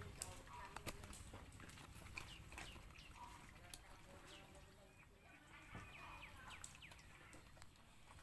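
Puppies eating from a bowl, faint wet smacking with scattered short clicks, and a few faint short chirps behind it.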